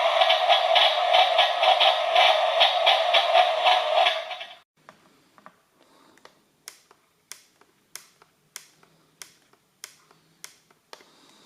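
Simulated two-stroke engine sound from the Trabant 601 scale model's sound module, played through its small speaker as a pulsing drone. It cuts off suddenly about four and a half seconds in. Then come faint, regular ticks, about one every 0.6 s.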